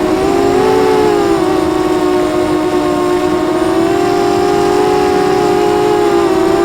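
Eachine Falcon 250 racing quadcopter's four brushless motors and propellers whining in flight, several close pitches beating against each other. The pitch rises and dips gently as the throttle changes, most clearly about half a second in and around four to six seconds in.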